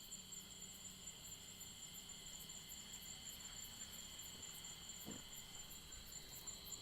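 Crickets chirring faintly and steadily.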